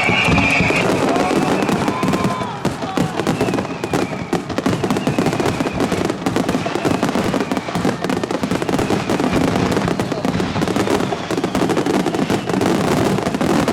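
Aerial fireworks bursting in a dense crackle of many rapid small pops.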